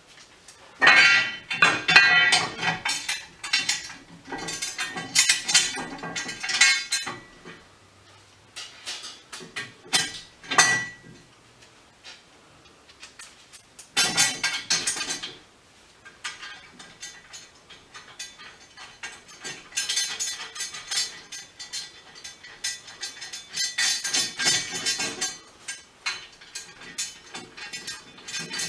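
Steel parts of a hydraulic strut spring compressor clinking and knocking against each other and the workbench as it is put together by hand. The clatter comes in irregular bouts with short pauses between them.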